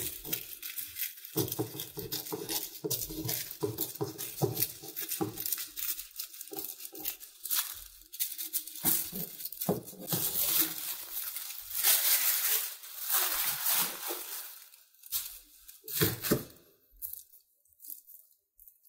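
Scissors cutting through tissue paper, with the thin paper rustling and crinkling as it is handled: a busy run of snips and rustles that thins out to a few light taps and rustles near the end.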